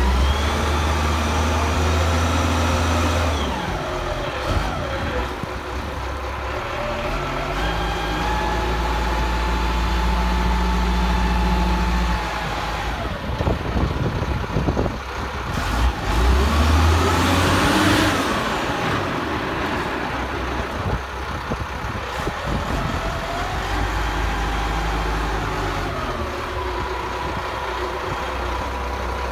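Diesel engine of a Texoma 900T crawler rotary drill running under changing load as the auger drills and is lifted out full of soil, the engine note stepping up and down with a whine that glides up and down. A louder, noisier stretch comes a little past the middle.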